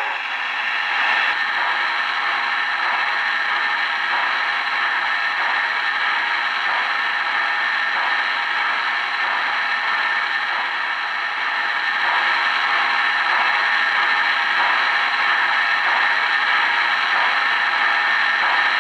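O-gauge model trains on the layout: a steady mechanical whir and rattle.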